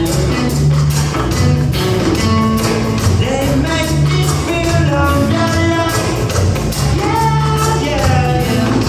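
Band music with a steady bass line, regular percussion, and a gliding lead melody over it.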